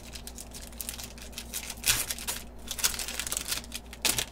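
Foil wrapper of a trading card pack being torn open and crinkled by hand, a crackly rustling with louder rips about two seconds in and again near the end.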